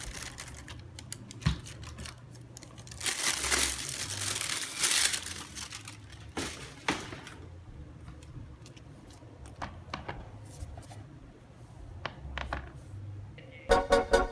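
Tissue paper crinkling and rustling in bursts as it is unfolded from around a pair of sneakers, with a few light clicks and taps. Music with a steady beat starts near the end.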